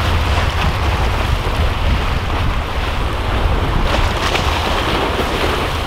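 Wind buffeting the microphone with a steady rumble, over the continuous wash of surf breaking against jetty rocks.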